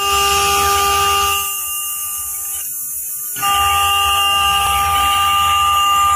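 AccTek AKM9012 CNC router spindle running at speed while its bit cuts a circle into a laminated board: a loud, steady, high whine of several held tones over a hiss. About two and a half seconds in, the upper tones drop out for under a second, then come back.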